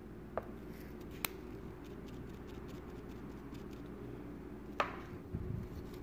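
Faint handling of a small printing block and paper by hand: three light clicks, about half a second in, a little over a second in and near the end, followed by soft rustling, over low room noise.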